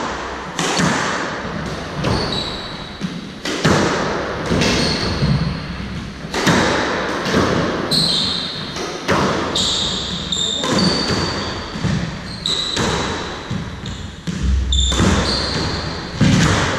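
A squash rally: the ball cracked by rackets and smacking off the court walls every second or so, each hit echoing in the enclosed court, with short high squeaks of court shoes on the wooden floor in between.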